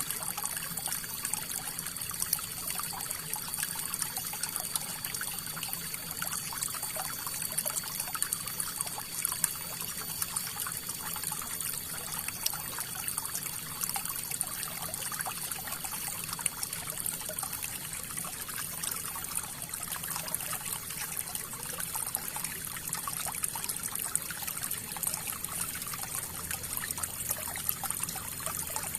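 River water flowing and splashing steadily, a continuous hiss of rushing water flecked with small splashes.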